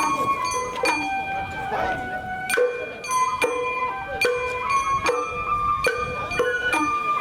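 Sawara-bayashi festival music: a held, note-changing melody over sharp, ringing, bell-like strikes that come at a steady beat, a little faster than once a second.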